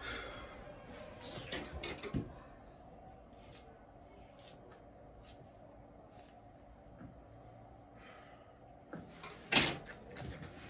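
Quiet room tone with scattered small clicks and rustles of handling, then a sharp knock a little before the end as the recording device is touched.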